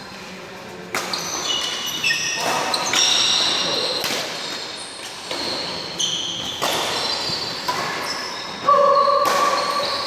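Badminton rally: repeated sharp cracks of rackets hitting the shuttlecock, with sneakers squeaking in short high chirps on the court floor, ringing in a large hall.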